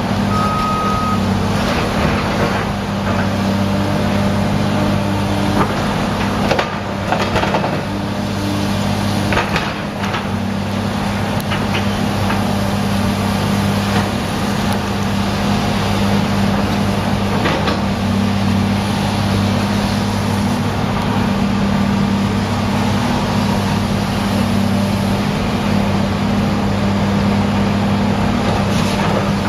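Heavy diesel demolition machinery running steadily with a low, even drone, with a few scattered knocks and clanks of debris being handled.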